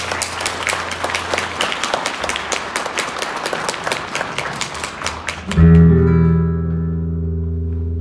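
Audience applause with dense, irregular clapping that stops about two-thirds of the way in. A loud, low, held chord from the band's instruments then starts and sounds steadily.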